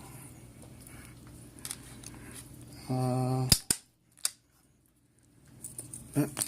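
Sharp metallic clicks and snaps of a small pin-tumbler lock cylinder being handled and taken apart. A brief steady hum comes about three seconds in, just before the loudest two clicks, and a few lighter clicks follow near the end.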